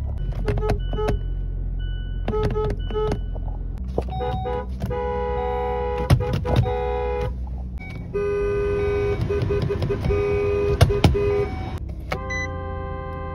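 Car horns honking: a run of short taps in the first three seconds, then several longer blasts each held for a second or more, over a steady low rumble.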